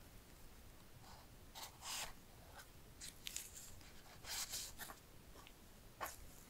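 A small blade scratching and slicing at the paper seal tabs on a cardboard phone box: a few faint, short scratchy sounds, the loudest about two seconds in, around four and a half seconds in and once more near the end.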